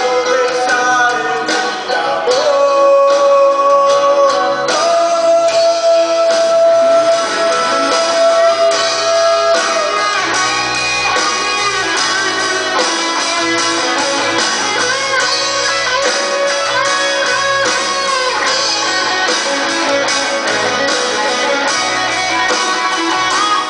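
Live band playing an instrumental passage between choruses, led by guitar with long held notes and bending pitches.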